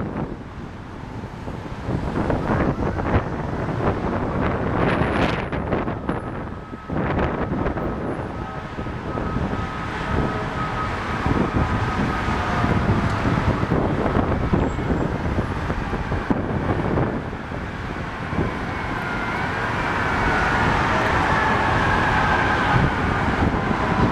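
Wind buffeting the microphone over steady city traffic noise, with several sharp bangs in the first few seconds. A siren wails faintly in the last few seconds.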